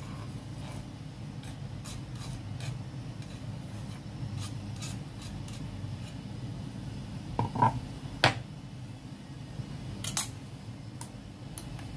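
Chopped green onions scraped off a wooden cutting board into a bowl of beaten eggs: light scrapes and clicks of the board and chopsticks against the bowl, with a few sharper knocks about halfway through and again near ten seconds, over a steady low hum.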